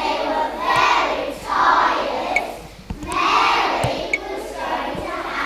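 A group of young children singing together in phrases with short breaks between them. A few dull thumps sound under the singing.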